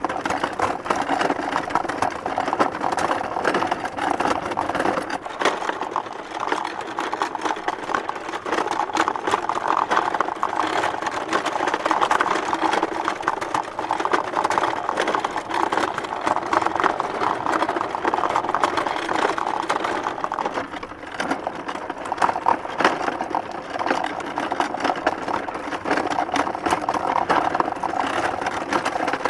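Small wooden handcart pulled along a bumpy dirt road: a continuous fast clatter of rattles and bangs from the wooden cart, easing briefly about two-thirds of the way through.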